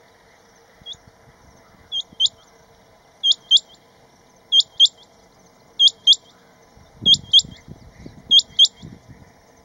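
Male rain quail giving its breeding call to attract a mate: one short note, then six loud double notes, each a quick upward-sweeping whistle, the pairs about a second and a quarter apart. Some low muffled thuds sound under the last few calls.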